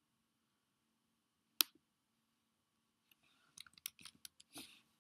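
A single sharp computer click about a second and a half in, then a quick run of keystrokes on a laptop keyboard for about a second near the end, as a short word is typed.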